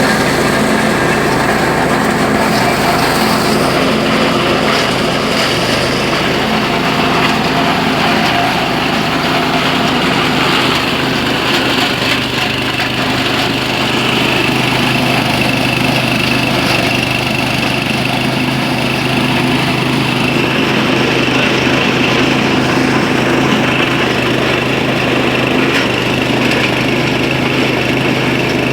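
Engine-driven grass chopper running steadily while shredding corn stalks and cobs, the cutting adding a crackle over the machine's even hum.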